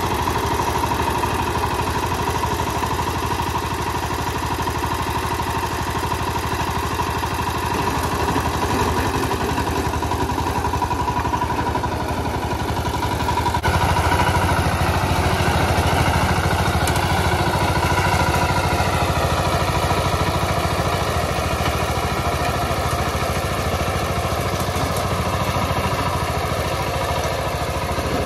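VST Shakti 130 DI power tiller's single-cylinder diesel engine running steadily. After about halfway it gets a little louder while the rotary tines churn the soil.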